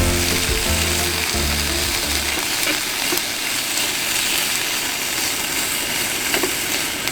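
Food sizzling as it fries in a pan, a steady crackling hiss. Background music plays under it for the first two and a half seconds, then stops.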